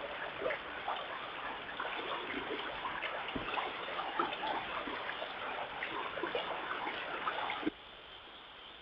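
Running water of a mountain stream, a steady rush with small splashes. It cuts off suddenly near the end to a much quieter background.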